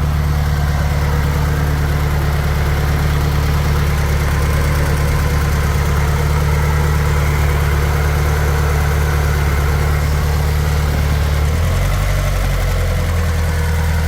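Subaru Impreza WRX STi's turbocharged flat-four engine idling steadily; about twelve seconds in, the idle note shifts.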